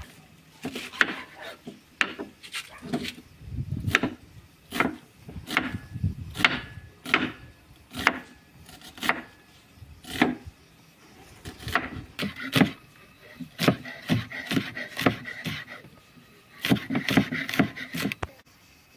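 Kitchen knife chopping onion on a wooden cutting board: a long run of separate, unhurried cuts, about one or two strokes a second.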